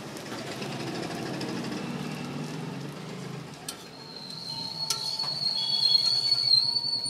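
Cooking at a flat iron griddle: a metal spatula clicks against the hot plate twice about halfway in, while a thin steady high-pitched whine sets in and holds.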